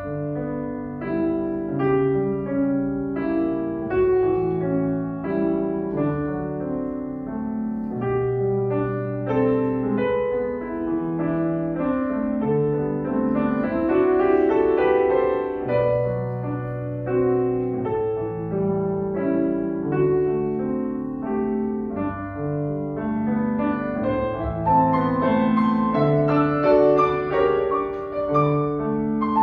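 Grand piano played solo, a slow lyrical piece of held chords and melody over sustained bass notes, swelling louder in places.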